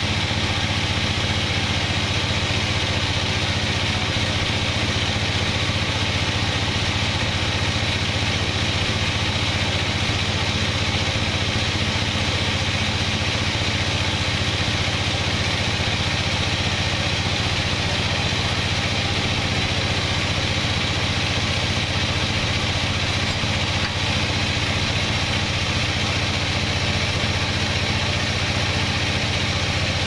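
Large band sawmill running steadily, its vertical blade cutting lengthwise through a teak log: a constant low hum under a steady higher hiss.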